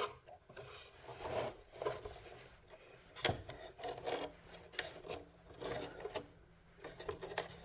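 Irregular scraping and rubbing handling noise as line and neutral wires are worked into terminals, with a sharper click about three seconds in.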